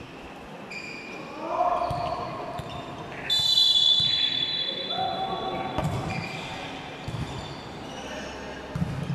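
Indoor court game in a large hall: sneakers squeaking and a ball thudding on the floor, with voices around. A referee's whistle blows once for about two and a half seconds, a few seconds in.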